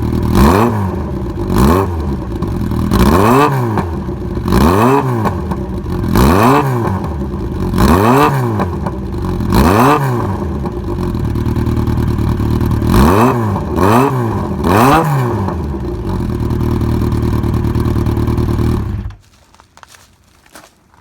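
Yamaha XJR1200 inline-four engine, breathing through an aftermarket Mizuno Motor exhaust silencer, blipped to rev about nine times in quick succession, each rev rising and falling back. It then settles to a steady idle and is switched off abruptly near the end.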